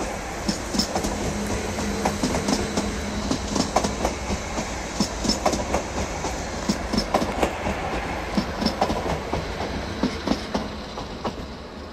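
Blue-and-white MÁV Stadler FLIRT electric multiple unit passing close by, its wheels clicking over rail joints in uneven runs over a steady rumble, with a low hum in the first few seconds. The sound fades near the end as the train draws away.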